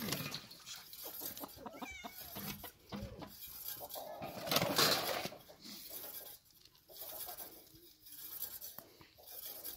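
Chickens clucking, with a brief loud rush of noise about halfway through.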